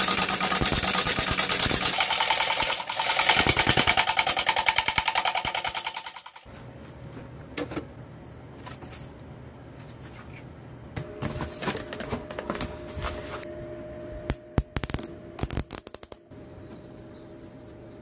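A gouge cutting an irregular root burl spinning on a wood lathe: a loud, rapid rattling as the tool meets the uneven surface and voids, which stops suddenly about six seconds in. After that comes a quiet low hum with a few scattered knocks.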